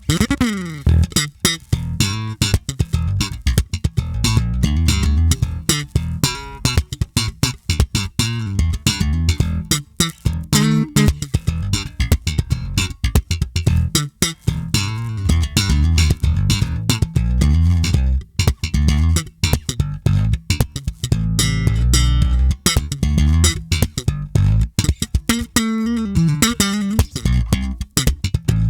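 Electric bass, a Tagima TJB-4 jazz bass through an active preamp with the treble turned up, played in a continuous groove with many sharp, percussive note attacks. It has sliding notes at the start and near the end.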